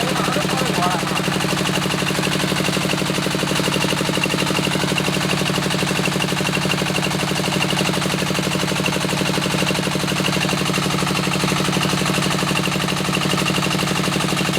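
Diesel engine of a small bore well drilling rig running steadily under load, with a rapid, even firing beat.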